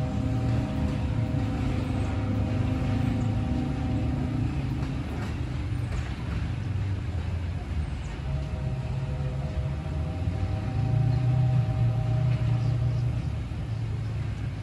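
A locomotive air horn sounds two long blasts, each a steady chord of several notes lasting about four to five seconds. The first comes at the start and the second begins about eight seconds in, over the train's steady low rumble. Long blasts like these are the grade-crossing horn signal.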